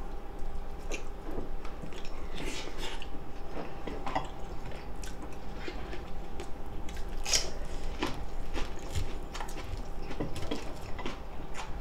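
Close-miked eating sounds: irregular chewing and biting with wet mouth noises, mixed with small clicks of chopsticks against plates.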